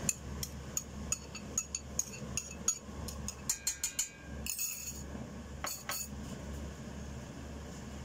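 Metal spoon clinking against a ceramic bowl and a stainless steel pot as chopped onion and garlic are scraped into the pot: a quick run of clinks for about the first four seconds, then two more about six seconds in, over a steady low hum.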